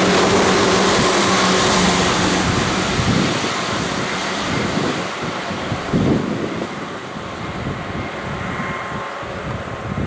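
Tokyu 8500 series electric train running past, its rumble fading as it draws away. A steady motor hum stops about two seconds in, and a couple of low thumps follow.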